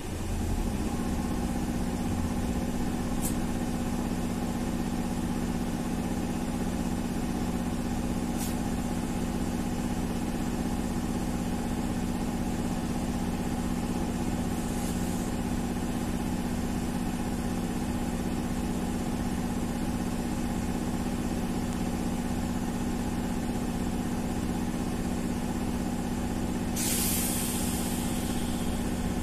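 Interior sound of a BKM 333 trolleybus under way: a steady electrical hum over road and body noise, with a short hiss of air near the end.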